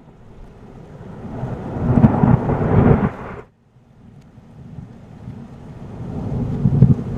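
Thunder rumbling: a rumble builds to a peak about two to three seconds in and cuts off suddenly, then a second rumble builds toward the end.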